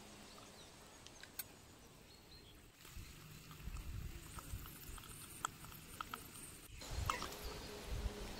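Faint small pops and crackles from a miniature pan of vegetables simmering over a little wood fire, over a low rumble.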